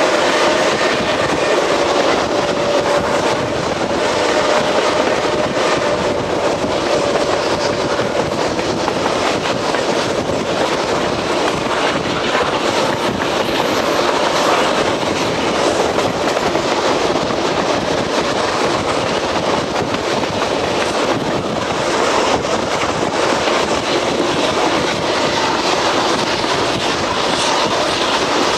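Passenger train rolling at speed, heard from the open side of a moving coach: wheels running over the rails with a clickety-clack and a steady rush of running noise. A faint steady whine sits under it for the first several seconds.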